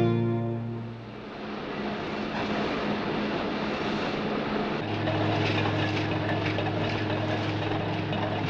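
Steady mechanical noise, a hissing rush, with a low hum that joins about five seconds in.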